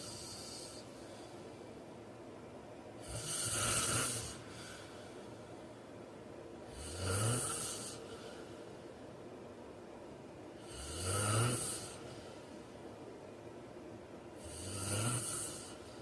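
A man snoring in his sleep. Four loud snores come about every four seconds, each lasting a second or so with a low tone that rises in pitch.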